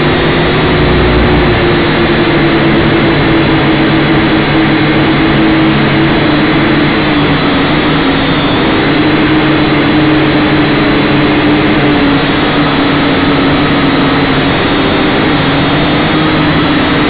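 Syma X5C quadcopter's small brushed motors and propellers buzzing steadily, heard close up through the drone's own onboard camera microphone. The hum's pitch sags a little in the middle and rises again near the end as the throttle changes.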